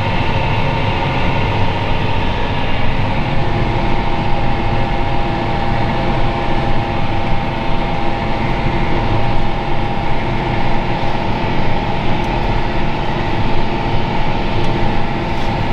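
John Deere tractor running steadily under load, heard from inside the cab as it pulls a seedbed cultivator through the soil, with a steady whine over the engine drone.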